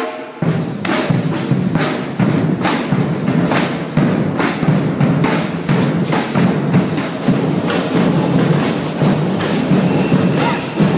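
A batucada samba percussion ensemble playing: surdo bass drums beat a steady driving rhythm under quicker strikes of hand percussion, starting abruptly about half a second in.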